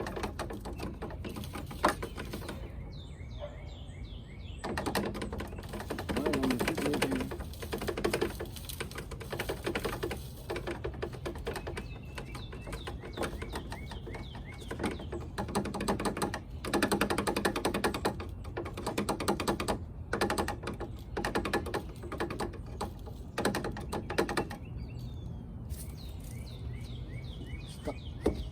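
Sand being poured into hollow plastic above-ground pool steps to weight them down: repeated rattling rushes of grains, each about a second long with short gaps between. Birds chirp a few times near the start and near the end.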